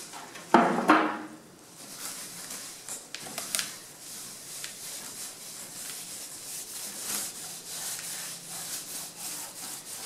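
Gloved hands rubbing and scrubbing a hard plastic (HDPE) dash AC-vent panel, a steady dry rubbing made of many short strokes. A brief louder sound comes about half a second in.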